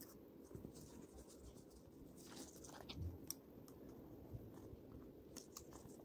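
Faint paper rustling and scattered soft crackles as a small paper cut-out is handled and pierced at its joints with a pin, over quiet room tone.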